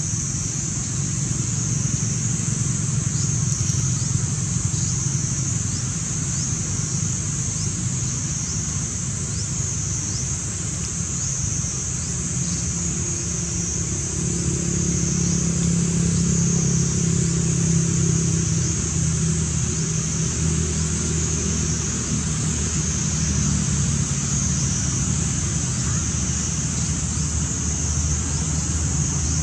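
A steady high-pitched insect chorus, pulsing rhythmically, over a low rumble of motor traffic that swells for several seconds in the middle.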